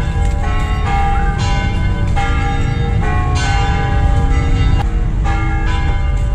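Church bells ringing, a new stroke about every second, each ringing on into the next, over a steady low rumble.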